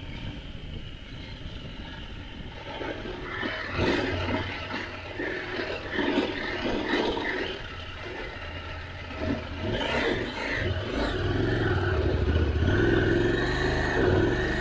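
Adventure motorcycle's engine running on a steep loose-gravel climb, its note rising and falling with the throttle as the bike slows for tight turns, over a rough rush of wind and tyres on gravel.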